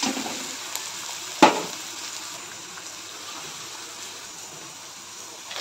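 Chopped onion sizzling in hot oil in a metal kadhai. One sharp clank about one and a half seconds in, as the perforated metal spoon knocks against the pan. The sizzle then runs on a little quieter.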